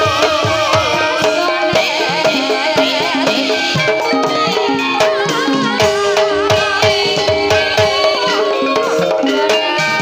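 Javanese gamelan music accompanying a kuda kepang (ebeg) dance: hand drums keep a steady, busy rhythm under ringing pitched percussion, with a wavering melody line above.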